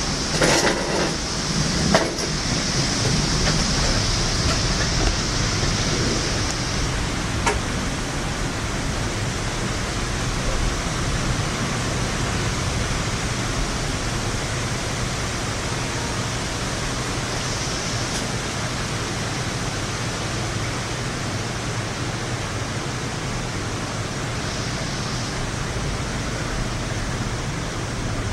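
Steady heavy rain during a thunderstorm, a constant hiss with no clear thunderclap, and a few sharp clicks in the first few seconds.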